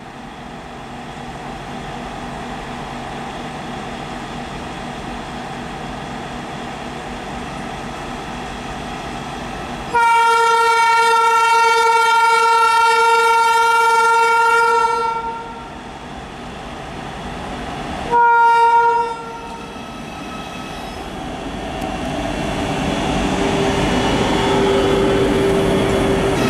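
Twin-section WAG12 electric locomotive hauling a long loaded freight train and accelerating: a steady hum, then a long horn blast of about five seconds starting about ten seconds in, and a short second blast a few seconds later. After that the rumble and hum swell as the locomotive draws closer.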